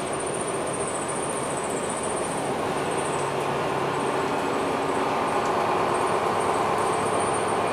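Cabin noise inside a moving MAN NL323F A22 city bus: the steady running of its diesel engine and drivetrain with tyre and road rumble, growing a little louder about halfway through. A thin, steady high whine sits above it.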